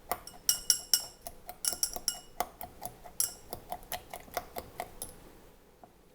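A utensil clinking rapidly against a hard container, several sharp strikes a second, each with a brief high ring; the strikes thin out and stop about five seconds in.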